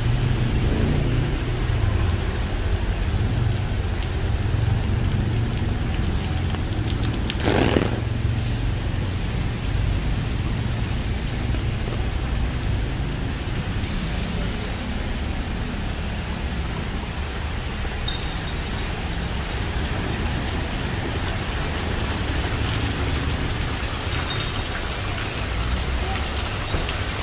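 Steady rain falling on wet pavement, with traffic running on the wet road alongside as a constant low rumble. A brief louder rush stands out about seven to eight seconds in.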